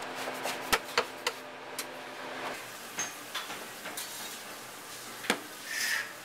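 Kitchen handling noises of working dough by hand: scattered knocks and clicks, hands rustling through flour in a metal bowl, and dough being patted on the counter near the end. A faint hum stops a little before halfway.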